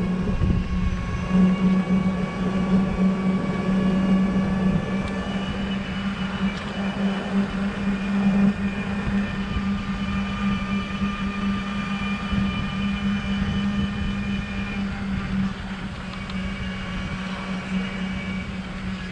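Golf cart driving steadily along a paved road: a steady low hum from its drive, a faint thin whine above it that shifts slightly in pitch a few times, and rumble from the tyres on the road.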